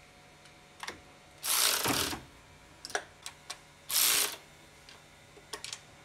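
Cordless electric screwdriver driving a long socket extension, run in two short whirring bursts, the first about two-thirds of a second long and the second about half a second, as it spins bolts in the engine bay. Light clicks of the socket and ratchet being handled come in between.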